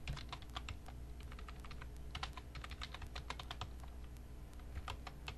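Computer keyboard being typed on: irregular runs of key clicks, with a pause of about a second past the middle, over a low steady hum.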